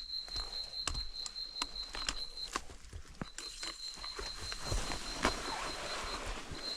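Footsteps crunching on a forest trail, with an insect trilling steadily at a high pitch that breaks off twice and starts again.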